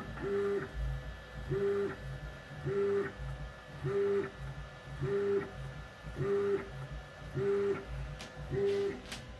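CNC milling machine's axis motors whining through repeated short moves as a touch probe digitizes a surface grid point by point: about once a second the pitch rises, holds briefly and falls away, with a low thud under each move.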